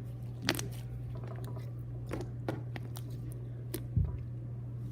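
Slime being squeezed and worked by hand, giving scattered sharp crackling clicks and pops over a steady low hum, with one dull thump about four seconds in.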